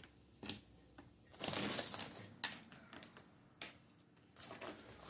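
Mango pieces being placed onto a mangonada in a glass: a run of about five short, soft crunchy knocks and rustles, the longest about a second and a half in.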